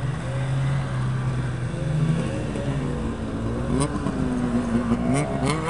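Several vintage two-stroke snowmobiles running in a slow line, engines idling and blipping, with a few sharp pops in the second half and one engine's pitch climbing quickly near the end as it revs.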